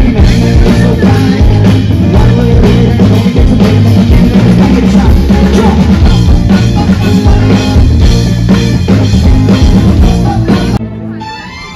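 Live rock band playing loud through a concert PA, with drum kit, electric guitar and keyboard keeping a steady beat. It drops away abruptly about a second before the end.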